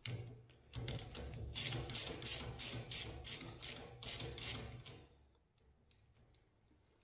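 Socket ratchet clicking as it is swung back and forth to undo a bolt on a garage door opener rail, with a wrench holding the nut underneath. About ten sharp clicks at roughly three a second over handling rustle, stopping about five seconds in.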